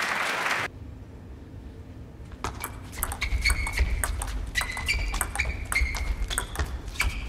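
Table tennis rally: the plastic ball clicks sharply off the rackets and the table in quick alternation, a few hits a second, with short high pings, starting about two and a half seconds in. Before that, a burst of crowd noise cuts off abruptly less than a second in.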